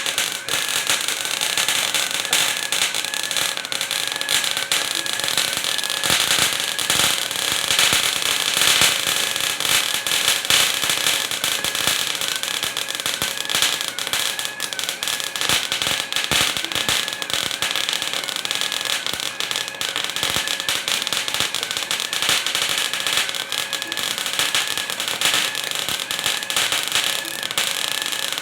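Welding arc of a large metal 3D printer depositing a high-carbon steel layer: a steady, dense crackle and sizzle, with a faint wavering whine underneath.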